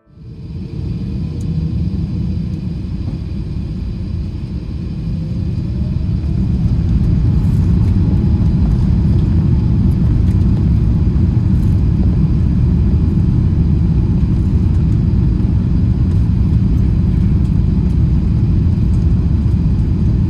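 Airbus A380 on its takeoff roll, heard from inside the cabin: a loud, steady low rumble of the engines at takeoff power and the runway. It grows louder about five to seven seconds in as the aircraft gathers speed, then holds.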